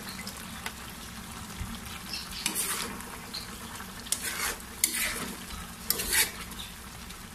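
Metal spoon stirring a simmering pork menudo stew in a metal frying pan: four scraping strokes of the spoon against the pan over the sauce's steady sizzle.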